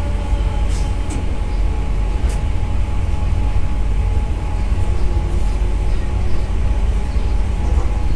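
Cab noise of a WAP7 electric locomotive running along the line: a steady deep rumble with a constant electrical hum over it. There are a few faint clicks in the first couple of seconds.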